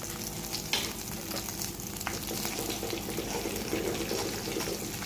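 Cumin seeds sizzling in hot oil in a kadai, with a few sharp pops and crackles, while a slotted spatula is stirred through them.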